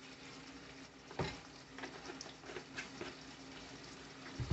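Faint sizzling of prawns frying in masala in a pan as a little more oil is poured in, with a few light clicks of utensils, the clearest about a second in.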